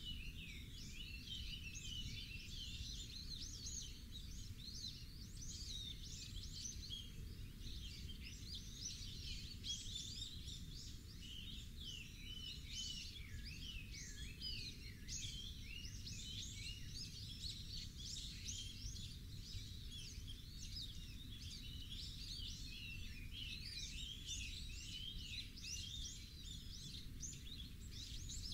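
A dense chorus of many small birds chirping and twittering over one another without a break, over a steady low rumble.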